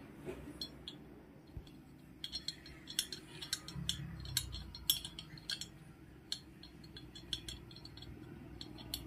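Light, irregular metallic clicks and clinks of a steel Allen key turning a small bolt into a motorcycle engine's cylinder, tool tapping against the bolt head and the metal.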